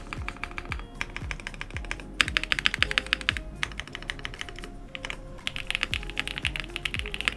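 Fast typing on a QK65 mechanical keyboard with linear switches and GMK keycaps: dense runs of key clacks, loudest in a burst about two seconds in and again near the end. Background music with a steady beat plays underneath.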